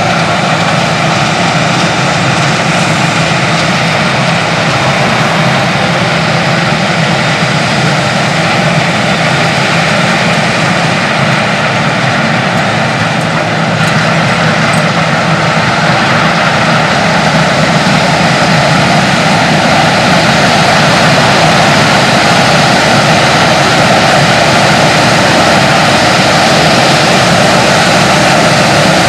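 Claas Lexion 480 combine harvester running under load while cutting rice: a loud, steady drone of engine and threshing machinery that grows a little louder about halfway through.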